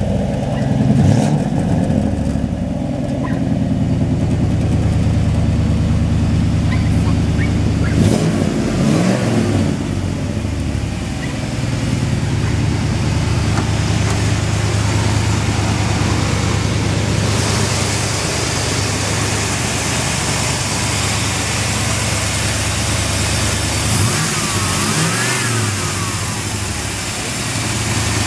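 1991 Chevy pickup's 350 V8 idling steadily, revved up and back down briefly a few times: about a second in, around eight seconds in, and several quick revs near the end.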